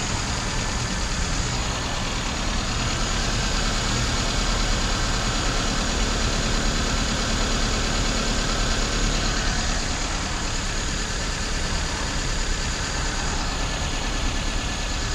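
1996 Toyota Corolla's 1.8-litre 7A-FE four-cylinder engine idling steadily, with a misfire that is not a heavy one.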